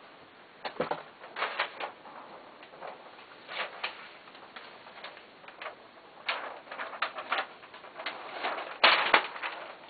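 Large sheets of chart paper rustling and crackling as they are lifted and handled against a wall, in a string of short irregular bursts, loudest near the end.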